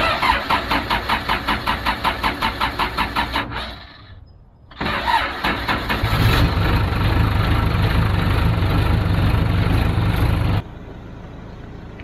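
Case 580K backhoe's four-cylinder diesel engine being cold-started: the starter cranks it in an even rhythm, about six pulses a second, for about three and a half seconds, then stops. Cranked again about a second later, the engine starts and runs steadily until the sound cuts off suddenly near the end.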